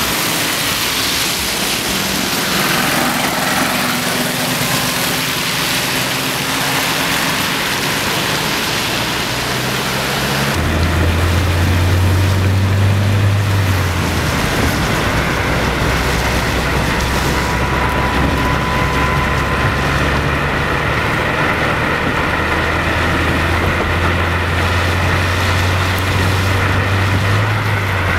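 A steady hiss of outdoor ambience, then from about ten seconds in, a car's engine drone and tyres hissing on a slushy, snowy road, heard from inside the moving vehicle.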